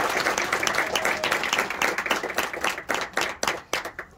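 A small group applauding, the claps thinning out to a few scattered ones near the end.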